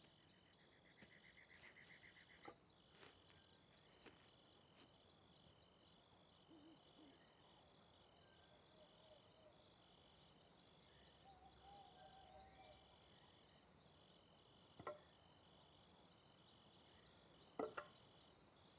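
Faint crickets chirping in an evenly repeating high pattern: a night-time ambience. A short trill sounds about a second in, and a couple of sharp knocks come near the end.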